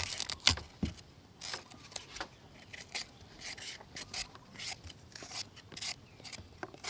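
Vegetable peeler scraping thin strips of skin off green bananas in short, irregular strokes.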